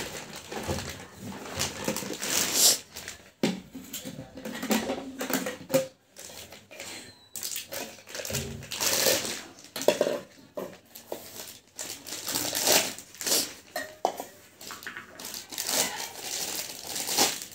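Clear plastic packaging bags crinkling and rustling in irregular handfuls as they are pulled off stainless-steel mixer-grinder jars, with now and then a light clink of a steel jar being set down.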